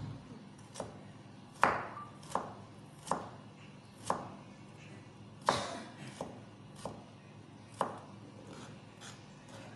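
Kitchen knife cutting carrot slices into sticks on a plastic cutting board: about a dozen separate knocks of the blade on the board, unevenly spaced at roughly one every half second to a second.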